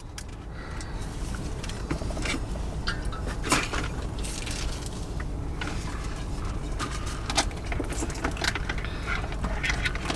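Inside a car: a steady low rumble with scattered light clicks and rattles, the sharpest about three and a half and seven seconds in.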